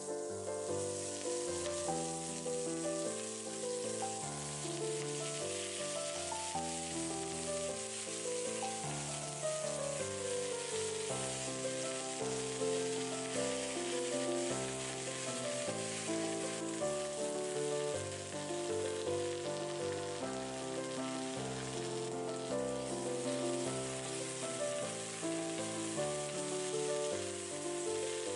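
Butter and spinach sizzling steadily in a cast iron skillet as the spinach is stir-fried, with background music playing over it.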